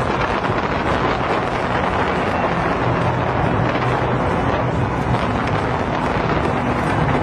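Fireworks exploding in a dense, continuous barrage of booms and crackles, with music faintly beneath.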